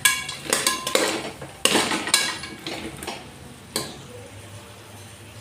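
A spoon stirring goat bones in a pan of tomato masala, scraping and clinking against the pan several times in the first three seconds and once more near four seconds, then dying down.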